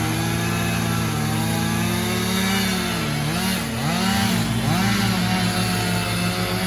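Petrol chainsaw engine running at steady high revs, its pitch dipping and recovering several times about halfway through as the throttle is eased or the chain bogs down in the wood.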